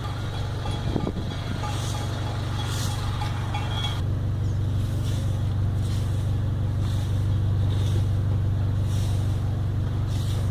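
Honda Civic 1.6 SOHC four-cylinder engine idling with a steady, even hum. The idle holds at controlled revs after a repair for a misfire code.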